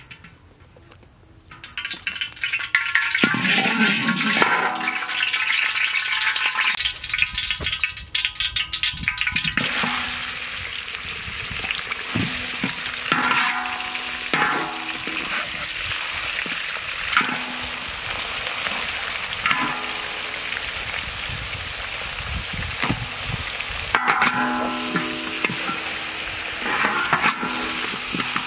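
Chopped goat meat frying in hot oil in a large metal wok: a steady sizzle, broken every few seconds by the metal spatula scraping and ringing against the pan as the meat is stirred. The sizzle jumps louder and hissier about ten seconds in.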